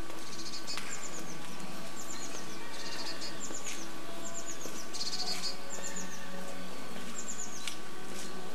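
A songbird singing the same short phrase over and over: a few quick, high, falling notes followed by a brief buzzy trill, repeated every second or two. A steady faint hum runs underneath.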